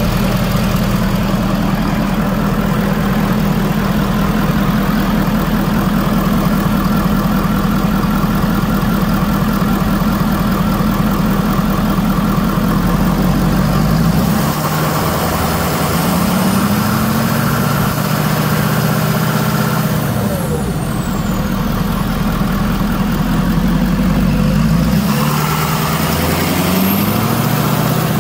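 Ford 6.7 L Power Stroke turbo diesel idling steadily. In the second half its pitch rises and falls several times, as the engine is revved and let back down, with a high whine rising and falling along with it.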